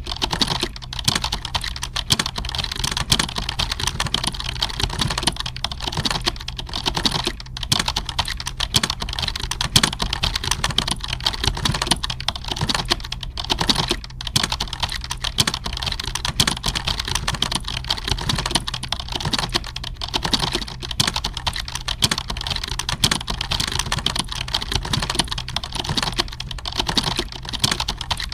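Continuous fast typing on computer keyboards, a dense stream of key clicks like a typing-test hall full of typists, over a steady low hum.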